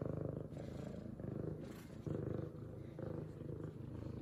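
F2 Savannah cat purring continuously, a contented purr that swells and eases about once a second.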